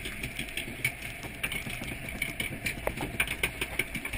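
Log flume boat being carried up the lift: irregular clacking and rattling of the lift mechanism over a steady mechanical hum.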